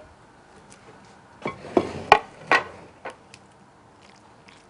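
A few knocks and ringing clinks of a ceramic plate and utensils being handled on a kitchen counter, clustered about two seconds in.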